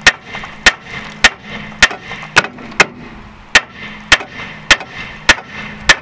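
A big hammer striking the steel front suspension of a 2009 Chevrolet Aveo in a steady series of sharp metal clangs, about two blows a second with a brief pause midway, to shock the ball joint loose from its seat while the lower control arm is being replaced.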